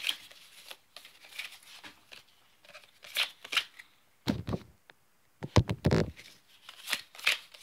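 Yu-Gi-Oh foil trading cards being handled: short crisp slides and flicks of card, with a couple of dull thumps a little past the middle.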